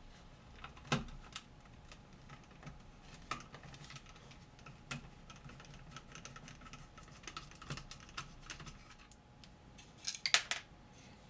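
Small scattered clicks and ticks of a screwdriver backing the Phillips screws out of a Weller D550 soldering gun's housing, with a short, louder clatter near the end as the case half is lifted off.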